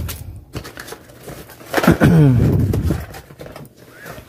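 A plastic-wrapped cardboard box being handled and turned over, with crinkling and small clicks. A short vocal sound falling in pitch comes about two seconds in.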